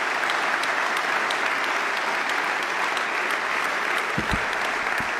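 A large audience applauding steadily, many hands clapping together. A few short low thumps come near the end.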